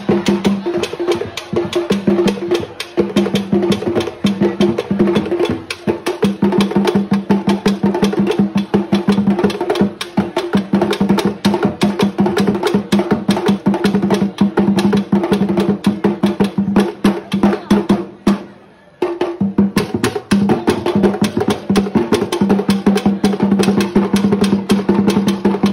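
Drum-led music for a Ghanaian cultural dance: fast, even percussion with drums and a clicking, wood-block-like pattern over a steady low tone. It cuts out for a moment about three-quarters of the way through, then picks up again.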